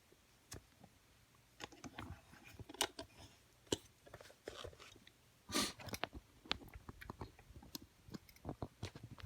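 Small lever padlock being handled: scattered clicks and light knocks, with a louder scraping rattle about five and a half seconds in.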